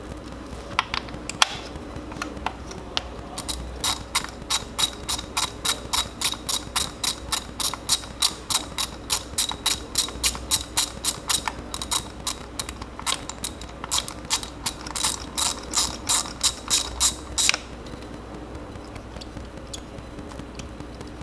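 Hand ratchet wrench working on the engine's number 3 spark plug position, its pawl clicking in quick even strokes of about three to four a second. A few stray clicks come first, and the ratcheting stops abruptly about 17 seconds in.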